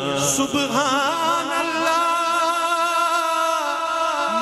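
A man singing a devotional naat solo into a microphone. He draws out the word "Subhan" as one long held note, wavering in a steady vibrato for about three seconds, and starts a new phrase near the end.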